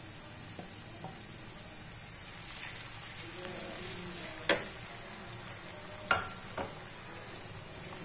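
Garlic, ginger and green chilli paste frying with onions in hot oil in a wok: a steady sizzle as it is stirred with a wooden spoon. The spoon knocks sharply against the pan a few times from about the middle on.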